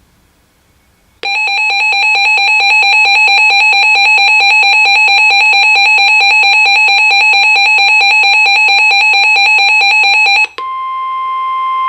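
Emergency Alert System attention signal on weather radio: a loud, harsh two-tone alarm that comes in about a second in and holds steady for about nine seconds. It then switches abruptly to a plain single steady tone, the weather radio warning alarm, for just over a second.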